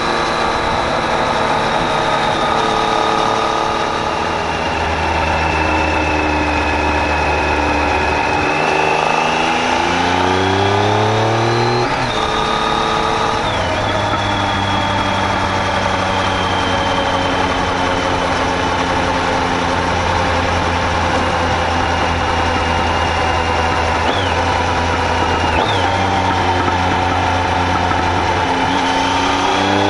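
Triumph Tiger 800 XC's three-cylinder engine running under way, the revs climbing and then dropping sharply at a gear change about twelve seconds in and again near the end. Between these the revs ease down slowly, with two quick blips. A steady rush of wind runs underneath.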